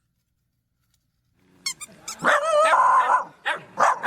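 A dog barking after about a second and a half of silence: a few short barks, then a longer wavering call, then more short barks.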